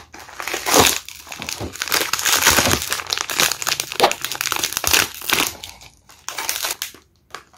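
Plastic blind-box bag crinkling and rustling as it is handled, dense for the first five seconds or so, then in sparser crackles that die away near the end.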